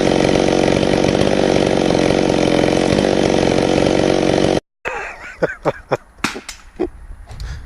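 Chainsaw running steadily at high revs, cutting off abruptly a little over four seconds in. After that come scattered sharp cracks and knocks.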